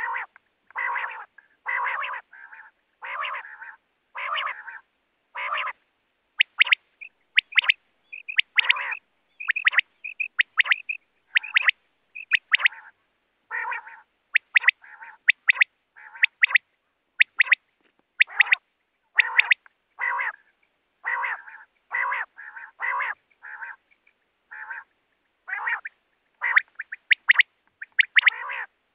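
Common quail calling over and over: quick runs of short, sharp high notes alternating with lower, coarser notes, each call separate, with clean silence between them.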